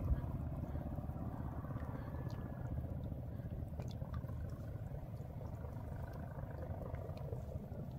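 Wind buffeting the microphone: a steady low rumble that flickers constantly, with a few faint clicks over it.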